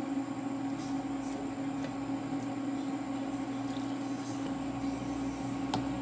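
A steady machine hum at one constant pitch, with a few faint clicks.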